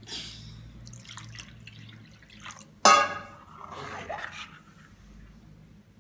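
Thin neer dosa batter of rice flour and water dripping and trickling back into the bowl as it is stirred and lifted to show its loose consistency, with small scattered ticks. About three seconds in, a utensil strikes the bowl once with a sharp ringing clink, the loudest sound.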